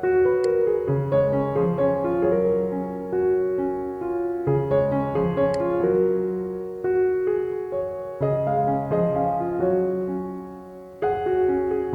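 Instrumental keyboard music: piano-like notes in a melody whose phrase starts again about every five and a half seconds.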